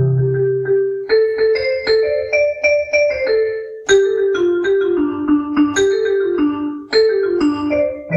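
Electronic keyboard playing a quick melody in a piano-like voice, short notes in phrases that mostly step downward, with a low bass note sounding at the start.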